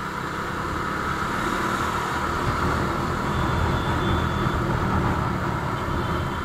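Bajaj Dominar 400 motorcycle's single-cylinder engine running steadily while riding, with wind and road noise rushing over the microphone.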